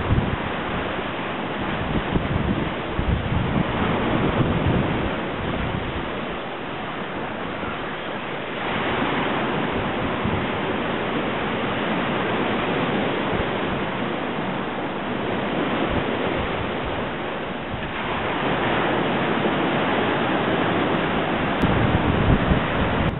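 Sea surf washing against a rocky shore, a steady rush that swells in slow surges, with wind rumbling on the microphone.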